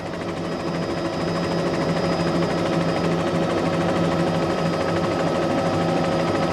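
Steady engine drone of the aircraft filming from above, an even hum with a hiss over it that holds level throughout.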